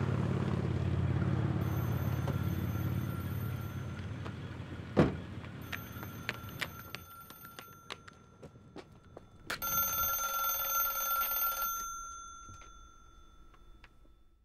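A low engine rumble fading away over the first few seconds, a single sharp knock about five seconds in, a few faint taps, then a telephone bell ringing loudly for about two seconds and dying away.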